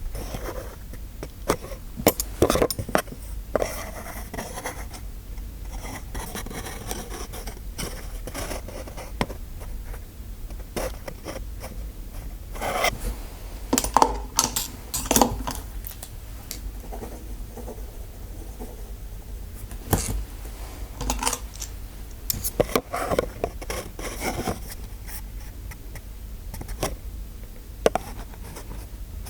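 Close-up ASMR scraping and scratching strokes mixed with sharp clicks, coming in irregular clusters with quieter stretches between them.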